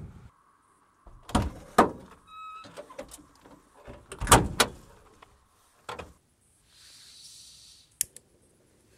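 A van's doors being opened and shut: several heavy clunks and thuds, the loudest about a second and a half in and again about four seconds in, with a short squeak between them. Near the end comes a brief hiss, then a sharp click.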